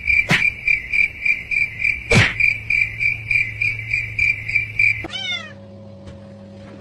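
High rhythmic chirping, an even run of about four chirps a second, broken by a couple of sharp clicks. About five seconds in it stops, and a short falling cry follows over a low steady hum.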